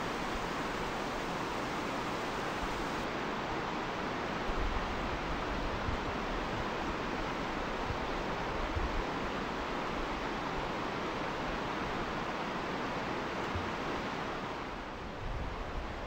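River rapids rushing steadily over and around boulders, dipping a little near the end.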